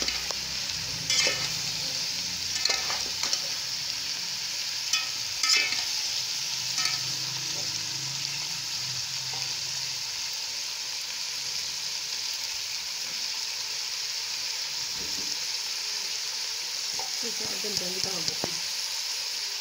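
Onions frying in oil in a pan with a steady sizzle. In the first seven seconds a spatula clicks and scrapes against the pan several times as they are stirred.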